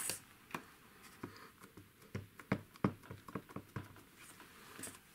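A series of light, irregular taps and clicks from a clear acrylic stamping block and a plastic ink pad being handled and set down on a craft mat.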